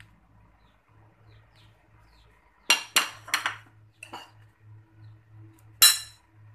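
Metal tongs clinking against a glass bowl and china plates. There are three quick clinks about three seconds in, a fainter one a second later, and a sharp loud one near the end.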